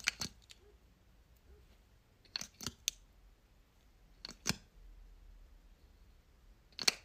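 Light clicks and taps from handling a small Charlotte Tilbury base bottle and its wand applicator cap, in a few short clusters: one near the start, three in quick succession a little over two seconds in, a pair past four seconds, and another near the end.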